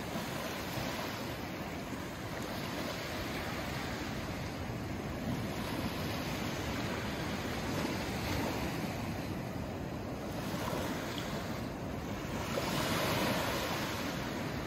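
Small waves breaking and washing up a sandy beach, the surf rising and falling as each wave comes in, loudest near the end.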